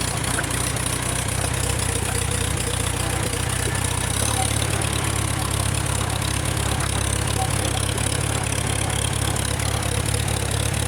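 1948 Farmall tractor engine running steadily as the tractor is driven, a low even rumble whose note shifts slightly about four seconds in.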